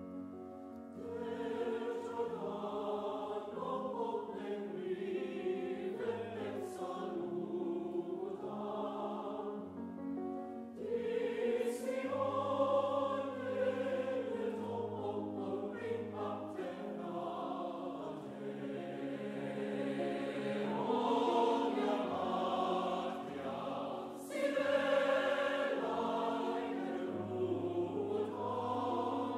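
Mixed choir singing sustained chords in long phrases that swell and ease, with short breaths between phrases.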